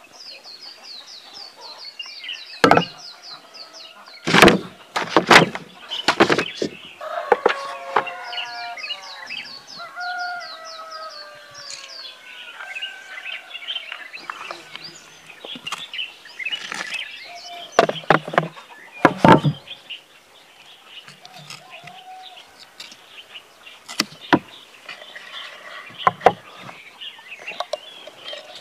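Small birds twittering and chickens clucking and crowing, with several loud, sharp knocks and clacks from clay type blocks being handled and set into an iron forme.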